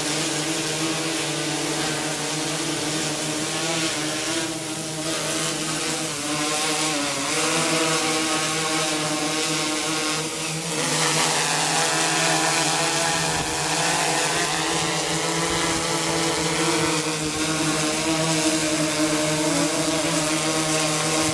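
DJI Inspire 1 quadcopter's motors and propellers buzzing in flight, a steady layered hum whose pitch wavers and shifts as the drone manoeuvres, most noticeably about halfway through.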